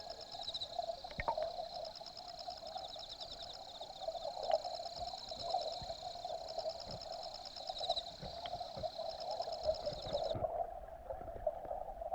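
Mountain stream water rushing, picked up by an underwater camera, with scattered small clicks. Over it runs a high, rapidly pulsing chirping that stops abruptly about ten seconds in.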